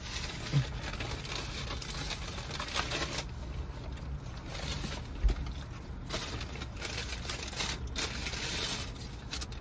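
Eating and the rustling of fast-food wrappers and paper bags, with scattered small clicks and one low thump about five seconds in, over a steady low rumble.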